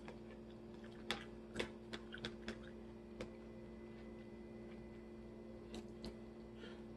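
Scattered sharp crunches and clicks of someone eating a salad with crisp apple and pecans, bunched in the first half and twice more near the end, over a low steady hum.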